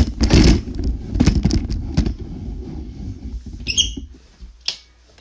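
Rumbling handling noise with bumps and knocks as the phone and microphone are moved while someone sits down on a bed, dying down after about two and a half seconds; a short high squeak comes near the end.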